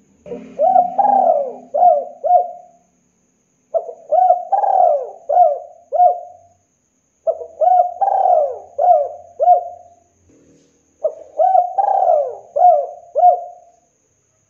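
Spotted dove cooing: four repeated song phrases, each a quick run of several coo notes, spaced about three and a half seconds apart.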